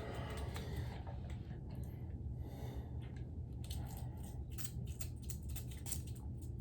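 Aerosol gun solvent sprayed onto the inside of pistol slides in short hisses, with light clicks and knocks of the metal parts being handled over a steady low hum.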